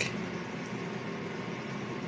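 Steady hiss of background room noise, with no distinct sound event.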